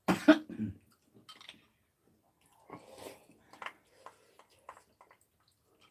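Eating at the table: chopsticks and a spoon click lightly against ceramic rice bowls, several short clicks between about three and five seconds in, along with soft chewing. A brief burst of voice comes at the very start.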